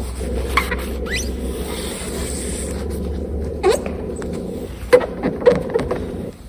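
Cleaning rubs on the vehicle's top ledge, a cloth worked along and under it with a plastic pry tool. There are a few short sliding squeaks and a couple of light knocks near the end, over a steady low hum that fades out about two seconds in.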